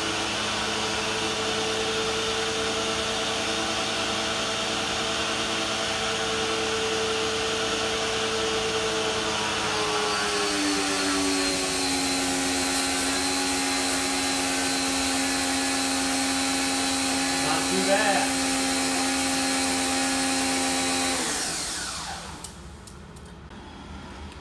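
Electric pressure washer motor and pump running on a triac speed controller, a steady whine with the hiss of misting nozzles spraying. About ten seconds in the whine drops in pitch and the spray hiss grows as the nozzles come up to a full mist; about 21 seconds in the motor is switched off and winds down.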